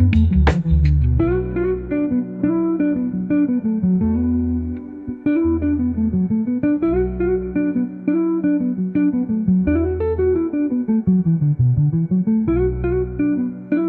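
Instrumental background music: a plucked guitar plays a rising-and-falling pattern of notes over and over, with low bass notes coming in every couple of seconds.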